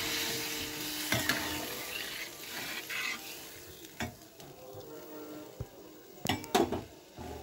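Spiced gravy sizzling in a kadhai just after water has been added, the sizzle dying down over the first couple of seconds, while a spatula stirs and scrapes the pan, knocking against it several times.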